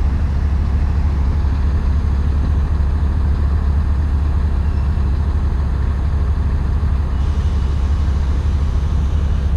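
Vehicle engine idling with a steady low rumble. A faint high whine holds from about a second and a half in until about two-thirds of the way through, then stops.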